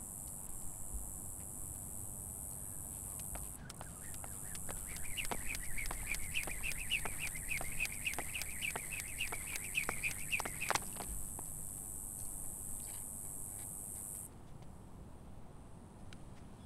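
Rogue SR1S speed rope, a coated steel cable on bearing handles, whirring through the air and ticking on a concrete path with each turn, about three turns a second. It starts about four seconds in, runs for about seven seconds, then stops.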